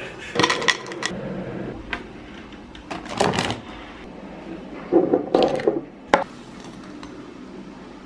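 Short clicks and knocks of kitchen handling: a Philips electric kettle set back on its base and switched on, then a glass instant-coffee jar picked up and its plastic lid opened, the sharpest click about six seconds in.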